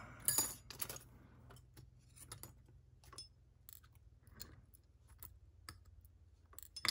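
Light, irregular metal clicks and taps from small parts of a disassembled dimple lock being handled, several close together in the first second and a sharper one near the end.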